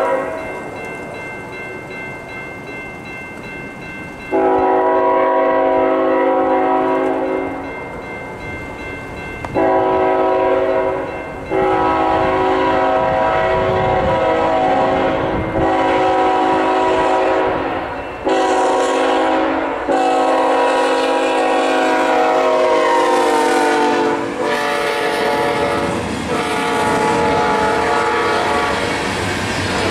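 Freight locomotive's multi-note air horn sounding a series of long and short blasts for a grade crossing. Its chord drops in pitch as the locomotive passes, about three quarters of the way through. A crossing bell rings in the gaps early on, and near the end the freight cars' wheels clack over the crossing.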